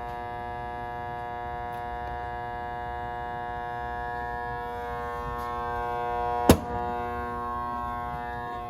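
Steady electrical buzzing hum, a stack of even overtones that holds unchanged, with one sharp click about six and a half seconds in.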